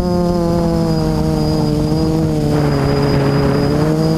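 FPV quadcopter's brushless motors and propellers whining, heard from the onboard camera; the pitch sinks slowly as the throttle eases, then climbs again near the end. A rush of air noise swells in about halfway through as the quad drops low.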